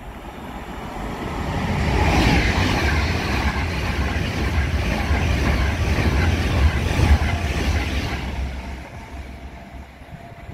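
Avanti West Coast Pendolino electric express train passing through the station at speed. A rumble of wheels on rail builds over about two seconds, holds loud for several seconds as the carriages go by, then fades as the train draws away.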